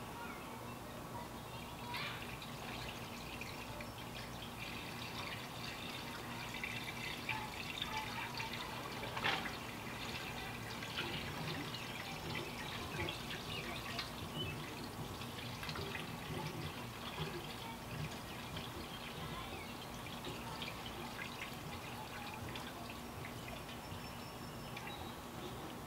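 Concentrated coolant poured from a plastic jug into a car radiator's filler neck: a steady, faint trickle of liquid with scattered small clicks and knocks from the jug.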